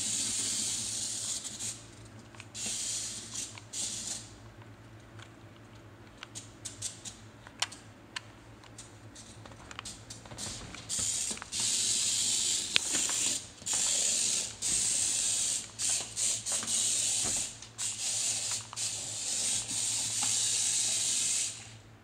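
Small remote-control toy stunt car's electric motor and gears whirring in repeated bursts of about a second, stopping and starting. Sharp clicks and knocks come from the car against a hard floor, and a quieter stretch in the middle holds only scattered clicks.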